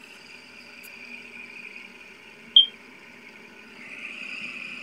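Fidget spinner whirring on its bearing as it spins on a wooden table, a steady high whir that swells slightly near the end. One short, sharp high chirp about halfway through.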